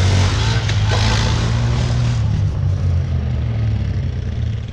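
Four-wheeler (ATV) engine running at a fairly steady pitch with small rises and dips, easing off in level near the end.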